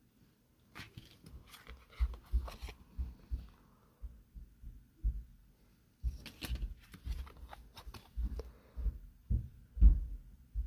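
Handling noise from a Pokémon card pack being opened close to the microphone: irregular low thumps with crinkling and tearing of the wrapper and clicks of the cards.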